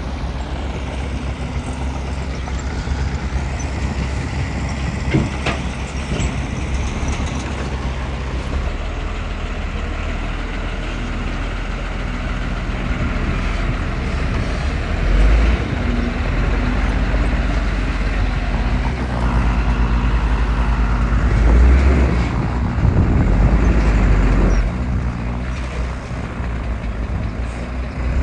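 Heavy diesel earthmoving machinery running steadily, with a single sharp knock about five seconds in. The engine grows louder under load briefly in the middle and again for several seconds near the end.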